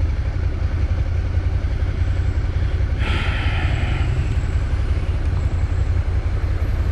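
Motorcycle engine idling steadily while stopped, a constant low rumble, with a brief hiss about three seconds in.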